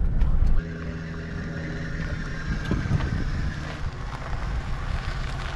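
Heavy low wind rumble that cuts off suddenly about half a second in, followed by a motor vehicle's engine running with a steady hum.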